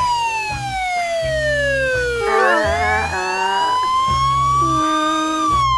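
Police siren sound effect, a slow wail that falls in pitch, rises again over about three seconds and starts to fall near the end.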